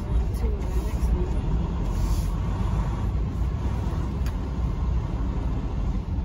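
A truck's engine and road noise heard from inside the cab as it drives slowly: a steady low rumble.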